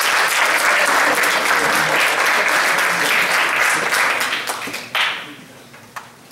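Audience applauding in a lecture hall. The clapping dies away about four seconds in, and a sharp knock follows near the end.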